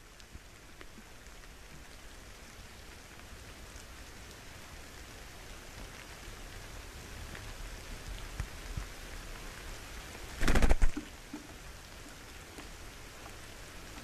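Steady hiss of rain that slowly grows louder, with one brief, quick run of loud taps about ten and a half seconds in.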